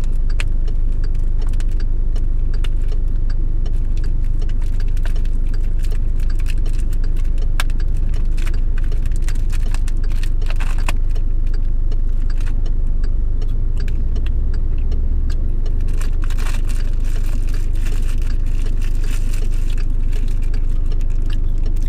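Steady low rumble of an idling car, heard inside the cabin, with scattered crinkling and clicks of plastic food bags being handled.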